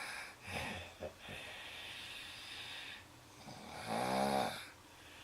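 A sleeping person snoring: long noisy breaths, then one loud pitched snore about four seconds in.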